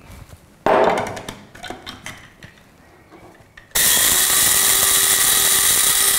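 Whole spice seeds (fennel, cumin, caraway, black mustard and fenugreek) rattle into an electric blade spice grinder, followed by a few clicks as the plastic lid goes on. About four seconds in, the grinder's motor starts suddenly and runs steadily, grinding the seeds.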